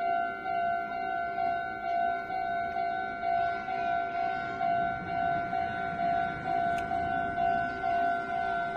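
Level crossing warning bell ringing steadily at about two strokes a second, with the crossing barriers lowered: the signal that a train is approaching.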